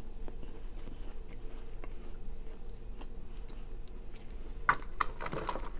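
Quiet room tone: a low steady electrical hum with faint scattered ticks, and a few short, louder handling or mouth noises near the end.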